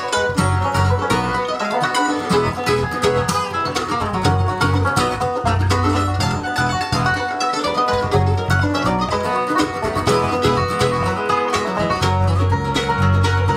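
Bluegrass band playing live: fast-picked five-string banjo and mandolin over strummed acoustic guitar and electric bass.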